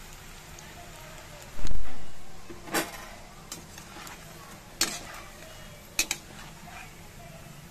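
Onion pakoras frying in oil in an aluminium kadai, with a metal slotted spoon scraping and clinking against the pan three times. A heavy dull thump about one and a half seconds in is the loudest sound.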